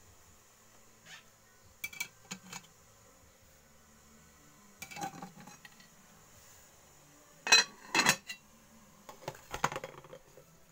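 Metal cooking pots and lids clanking and clinking as they are handled, in scattered short knocks with a little ringing; the loudest pair comes about seven and a half seconds in.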